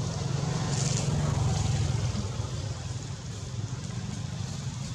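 A low, steady rumble that swells about a second in and then eases off.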